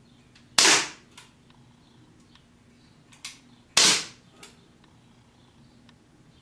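Umarex Glock 19 non-blowback CO2 BB pistol firing two shots about three seconds apart, each a sharp pop, with fainter clicks between them.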